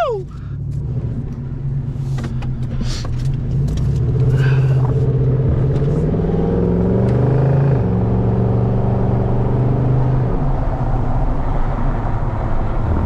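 Pickup truck's engine and road noise heard from inside the cab while driving, the engine note rising steadily for several seconds and then dropping about eight seconds in before running on evenly.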